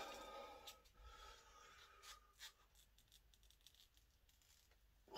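Faint rustling and scratching from the padded wraps around a short steel bar being bent by hand, with a few small clicks; a little louder in the first second.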